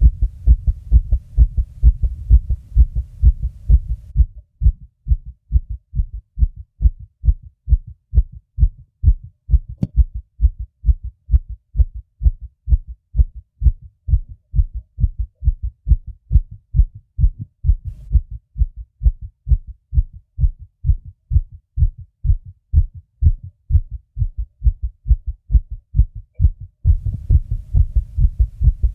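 Human heartbeat beating fast, a steady, regular run of low thuds. A low rumble lies under the beats for the first few seconds and again near the end.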